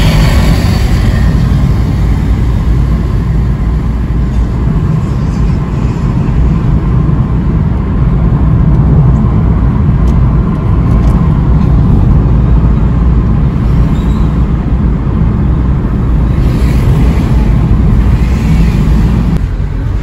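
Steady road noise of a car driving at speed on a highway, heard from inside the car: a constant low rumble of engine, tyres and wind.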